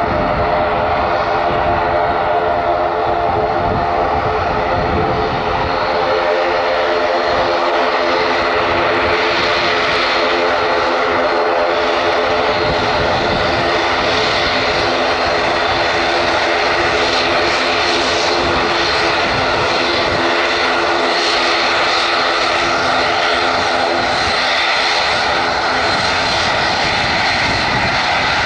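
Airliner engines running loudly and steadily: a continuous rushing noise with several steady tones held through it.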